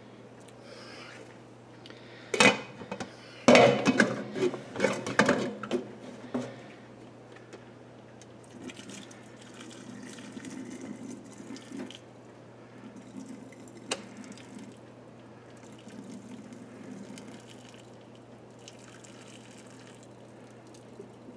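Hot cooking water poured off a pot of boiled broccoli into a stainless steel sink, the pot tipped with its lid held ajar. There are metal clanks of the pot and lid against each other and the sink from about two to six seconds in, then the pouring comes in softer spells.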